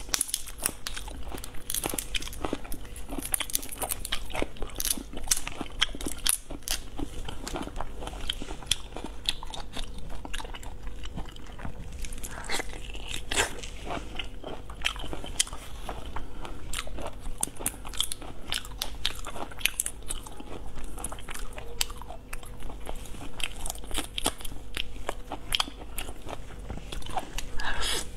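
Close-miked mukbang eating sounds: shellfish shells cracked and peeled by hand, with biting, crunching and chewing in a dense run of irregular clicks and crackles.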